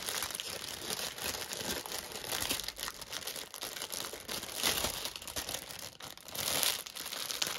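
Plastic packaging crinkling and rustling as it is handled, with several louder swells of crinkling.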